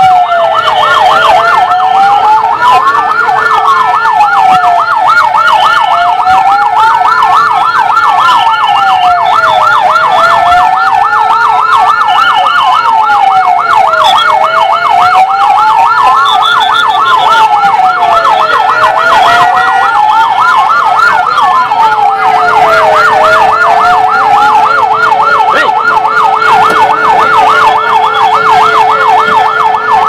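Several emergency-vehicle sirens sounding at once and continuously: one in a fast yelp, sweeping up and down a few times a second, layered with a slower wail that falls and rises about every four seconds, over a steady lower tone.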